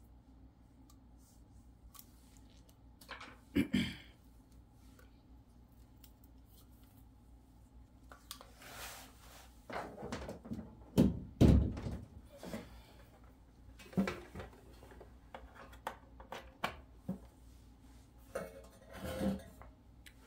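Handling noise from a small plastic photo printer and its power cable: scattered knocks, thumps and rustles as the cable is unwrapped and plugged into the back and the printer is shifted across a stool top. One sharp thump comes about three seconds in, and the loudest cluster of thumps comes a little past the middle.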